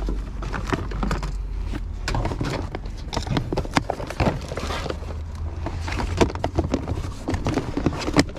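Rummaging through a box of craft supplies: irregular clatter and knocks of small items and plastic containers being handled, several a second, with rustling in between.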